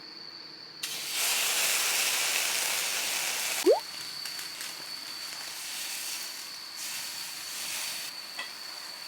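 Wagyu beef hitting a hot grill and sizzling loudly for about three seconds, then settling to a quieter steady sizzle. A short rising squeak comes about four seconds in.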